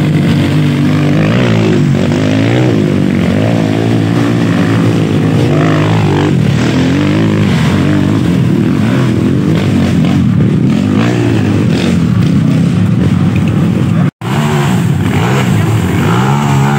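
Several dirt bike engines revving hard and unevenly, the pitch rising and falling, as they climb a steep dirt slope. The sound cuts out for an instant about two-thirds of the way through, then resumes.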